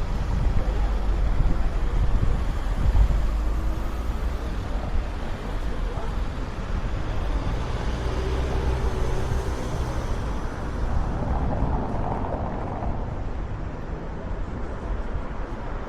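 Wind rumbling on the Insta360 X4 camera's microphones through their wind protection, heaviest in the first few seconds, over outdoor background noise. A vehicle passes in the middle.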